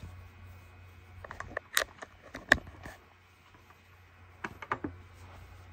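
Handling noise of things being picked up and moved: a quick run of sharp clicks and knocks about one and a half seconds in, and another short cluster about four and a half seconds in, over a low steady hum.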